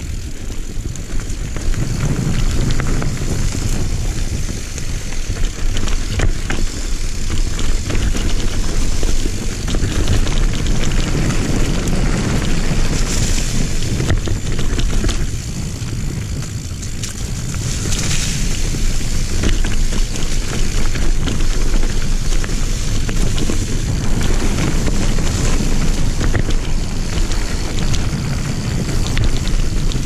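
Wind rushing over the microphone with the rumble and clatter of a mountain bike descending a rough dirt singletrack: tyres on dirt and frequent small rattles from the bike.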